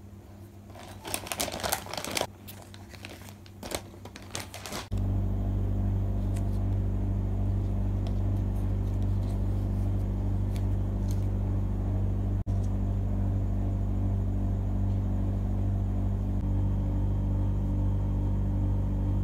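Rustling, crinkly handling of cloth and embroidery thread with small clicks. About five seconds in, a loud, steady low hum starts suddenly and runs on unchanged.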